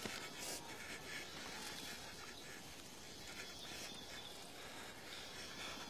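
Faint steady outdoor ambience with a few brief, faint high-pitched sounds.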